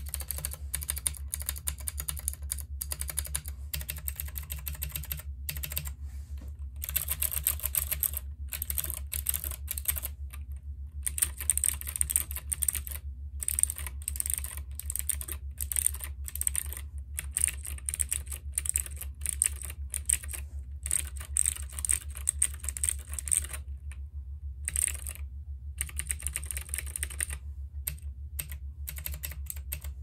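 Typing on a Womier K66 mechanical keyboard with unlubed Gateron Blue clicky switches: a fast run of sharp clicks from the keypresses. The typing comes in runs broken by several short pauses.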